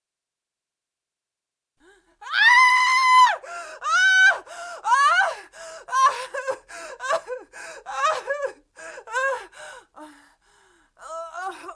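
A woman's high-pitched scream starting about two seconds in, followed by a string of short, gasping cries, about one a second, growing fainter toward the end: a terrified scream dissolving into panting gasps.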